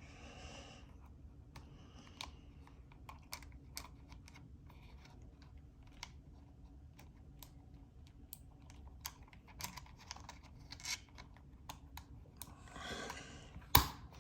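Keys of a Logitech G915 keyboard with clicky low-profile switches clicking at an irregular pace, a few presses at a time. A short rustle comes near the end, then one sharp, much louder click.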